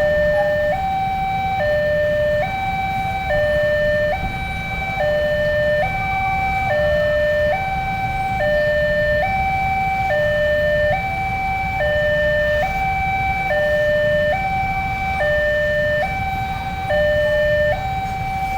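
Telolet-style two-tone horn on a Babaranjang coal train, sounding like a siren: a high note and a low note alternate, each held a little under a second, in a steady repeating pattern over a low rumble.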